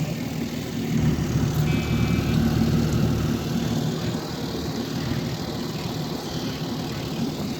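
Small boat's outboard motor running steadily, a low engine drone.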